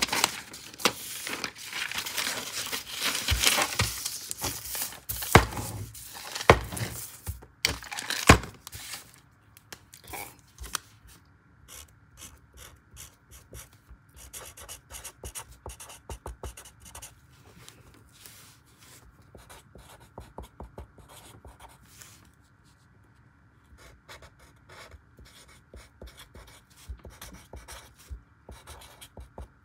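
Sheets of notebook paper rustling and being handled, with a few sharp snaps, for the first eight or nine seconds; then a felt-tip marker writing on lined paper in short, quiet strokes.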